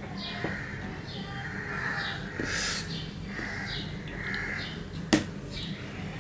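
Birds calling repeatedly in the background. A short rushing noise comes about two and a half seconds in, and a sharp metallic clink about five seconds in as a small steel bowl is set on a steel plate.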